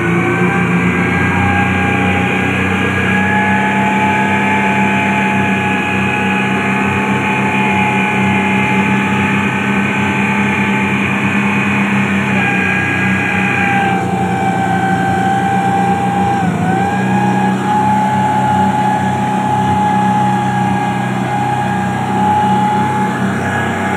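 Twin Yamaha 250 four-stroke V6 outboard motors running together at steady high speed under load, with a steady whine over the engine note and the rush of water and spray from the wake. The pitch dips briefly about two-thirds of the way through, then recovers.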